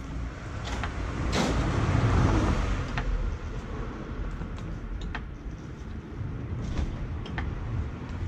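Hydraulic floor jack being pumped with its long handle to lift a car, a sharp click at several of the strokes, over a steady outdoor rumble that swells about a second and a half in.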